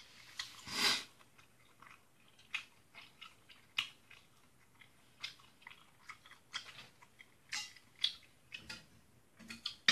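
A person chewing a mouthful of food, with short mouth clicks at irregular intervals and a louder puff of noise about a second in.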